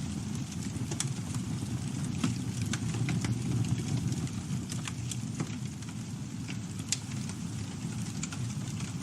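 Campfire burning with a steady low rumble and scattered sharp crackles and pops from the burning wood, a few louder pops standing out.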